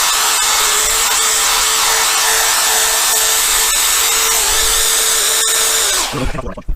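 Drill spinning a polishing pad against a plastic motorcycle windscreen, running at one steady speed with a steady whine, then stopping about six seconds in, followed by a short knock.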